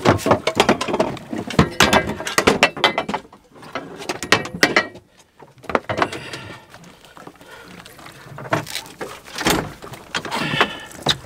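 Rapid clicking, rattling and knocking of fishing gear at the boat's rail while a tuna is being gaffed alongside. It comes in dense bursts, eases off about five seconds in, then picks up again near the end.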